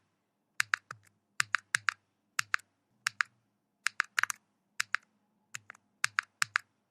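Sharp clicks in quick groups of two to four, a group a little more often than once a second, with silence between the groups.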